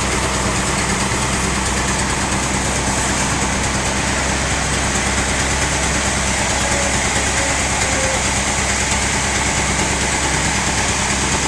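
Sawmill machinery running steadily, a continuous mechanical drone with a low hum that stays even throughout.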